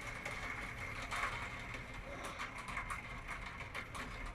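Rain falling steadily, with many small drops pattering and ticking irregularly.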